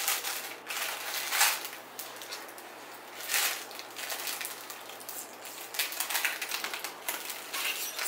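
Clear protective plastic film being peeled off a PC case side panel and crinkling in the hands, a run of irregular crackles with several louder bursts.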